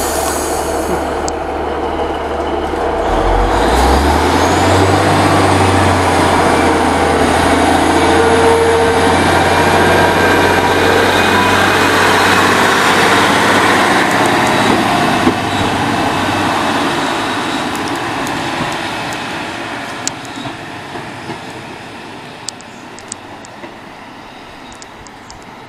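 Class 150 Sprinter diesel multiple unit pulling away from the platform: its Cummins diesel engines rev up about three to four seconds in with a rising low note, run loud for about ten seconds, then fade steadily as the train draws away.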